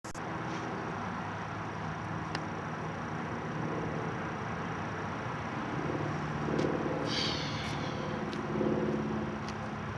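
Steady low hum of an engine out of sight, louder between about six and nine seconds in. A short high chirp comes about seven seconds in.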